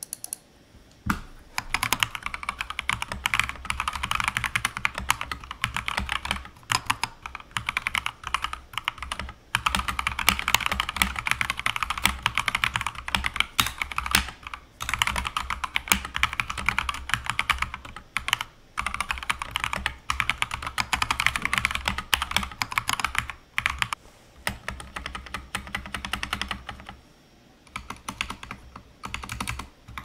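Continuous fast typing on a stock, factory-lubed Akko 3098B mechanical keyboard with Akko CS Jelly White switches and ASA-profile PBT keycaps: rapid key clicks in runs with brief pauses, starting about a second in.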